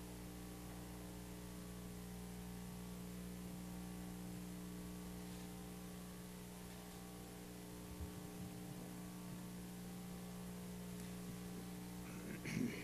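Steady electrical mains hum with a faint hiss from the microphone and sound system, and a brief rustle near the end.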